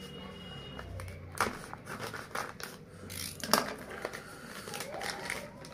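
A plastic packet of jumper wires being cut open with a snap-off utility knife and handled: crinkling plastic with scattered sharp clicks and scrapes, the loudest click about three and a half seconds in.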